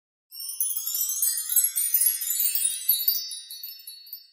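A short sparkling chime jingle: many high, tinkling bell-like tones ringing together, coming in suddenly and fading away near the end.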